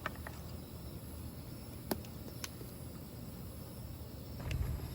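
Crickets and other insects chirring steadily over a low rumble, with a few sharp clicks and a soft low thump near the end.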